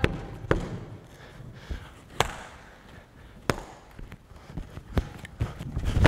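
Bare feet tapping and stamping on the floor during karate footwork, with a few sharp clicks spread through, then heavier thumps near the end as the fighter drives in with a one-two punch.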